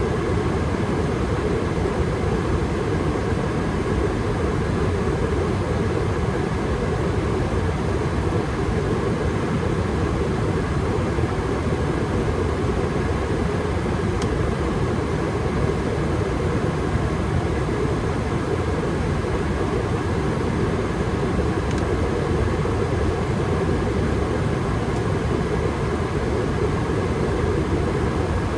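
Gas furnace running steadily at high fire, its burners firing with the circulation blower moving air, a constant even rush with no changes.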